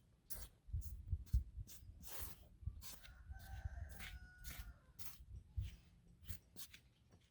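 A rooster crowing once, a held call of about a second and a half starting about three seconds in, over scattered clicks and low knocks.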